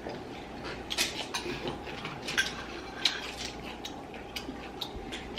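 Scattered light clicks and clinks of eating utensils against dishes at a meal table.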